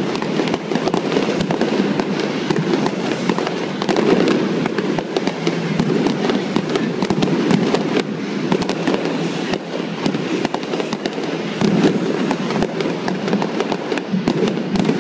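Aerial fireworks display: a dense, unbroken run of rapid pops and crackles from bursting shells and crackling stars.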